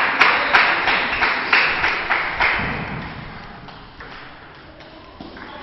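Table tennis rally: the ball clicking sharply off the bats and the table, about three clicks a second, stopping about two and a half seconds in as the point ends.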